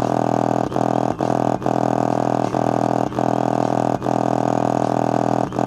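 Subwoofer playing a loud, buzzing low bass tone with many overtones, broken by short gaps about every half second to a second.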